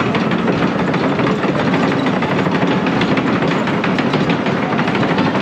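A wooden roller coaster train being hauled up a cable lift hill: a steady, rapid rattling clatter of the lift cable and the cars' wheels on the timber track.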